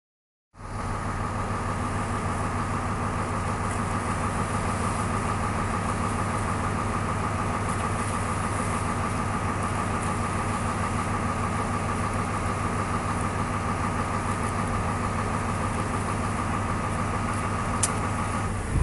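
Boat engine idling steadily, a constant low drone with a higher hum above it, which cuts off suddenly at the very end.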